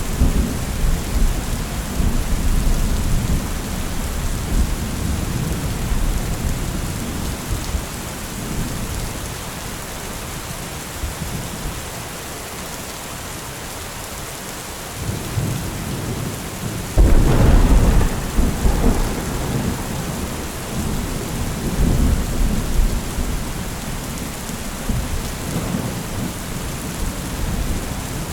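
Steady rain hissing with rolling thunder. An early low rumble dies away, then thunder builds about halfway through and breaks into a loud clap a little after, rumbling on in further waves.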